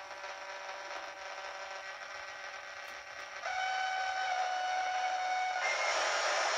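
Yaesu HF transceiver's speaker putting out interference noise: a buzzy stack of steady whining tones over hiss. About halfway through it gets louder and shifts to new, stronger tones, and near the end these give way to a louder, even hiss. The noise is radio-frequency interference, which the owner traces mainly to a Samsung computer monitor.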